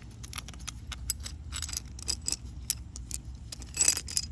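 Steel washers and parts of a sway bar end link clinking as they are handled and slid onto the link bolt: many small metallic clicks, with a louder flurry of clinks near the end.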